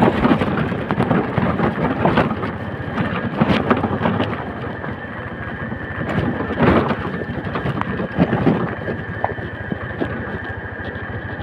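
Motorcycle riding down a steep, rough unpaved road in the rain: a steady noisy rush of wind and rain with frequent knocks and rattles from the bumps.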